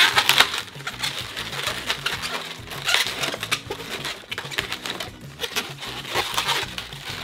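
Latex modelling balloons, a red 160 and black 260s, rubbing and squeaking against each other as they are twisted together, in bursts near the start, about three seconds in and about six seconds in.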